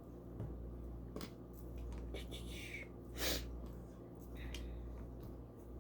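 A few small sharp clicks of plastic LEGO pieces being handled and pressed together, over a steady low hum, with one short rustle about three seconds in that is the loudest sound.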